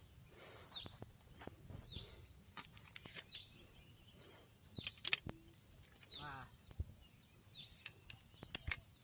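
A bird calling again and again with a short, high note that slides downward, roughly once every second and a bit, mixed with scattered faint clicks and knocks.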